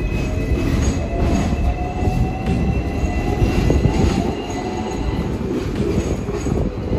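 Hong Kong double-decker electric tram running along the street, its steel wheels squealing on the rails in thin high tones over a low rolling rumble.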